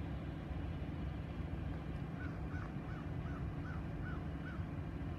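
A bird calling seven times in a quick, even series of short notes that each rise and fall, starting about two seconds in, over a steady low rumble.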